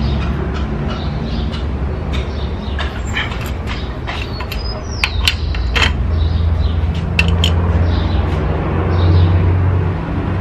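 Wrench turning a cylinder head bolt through a 90° angle-tightening stage on a Fiat Ducato 1.9 diesel: scattered clicks and knocks of the tool, with a brief high squeak about five seconds in, over a steady low rumble.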